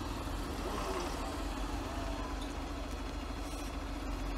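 Heavy diesel truck engine running steadily with a constant low hum and no revving, as the tow truck holds a stuck semitrailer rig on a taut tow cable in snow.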